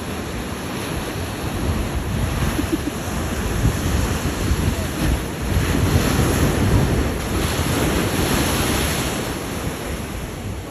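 Surf washing and wind buffeting the microphone: a dense, uneven rush that swells and eases, heaviest in the low end.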